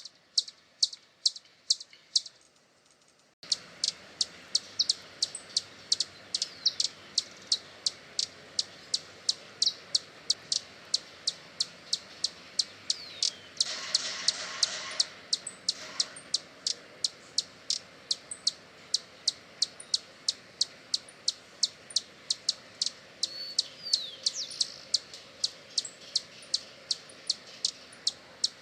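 Hummingbird giving sharp, high chip calls, repeated steadily about two to three times a second. A louder burst of other bird calls is heard about halfway through.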